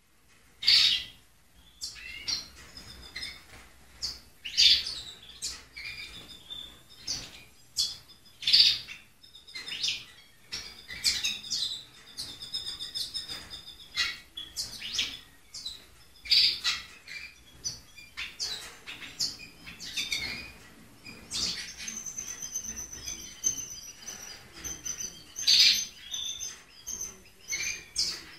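Caged male siskin and female canary calling while courting: loud, sharp, high chirps every two to four seconds, broken by stretches of rapid twittering song about twelve seconds in and again past the twenty-second mark.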